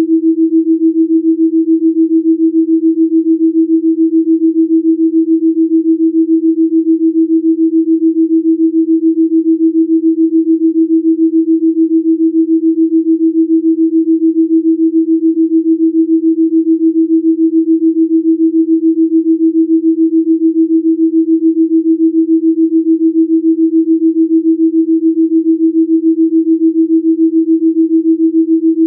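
A single steady pure tone, pitched a little above 300 Hz, held without change, with an even, rapid pulsing in its loudness: a delta-range binaural-beat Rife frequency tone.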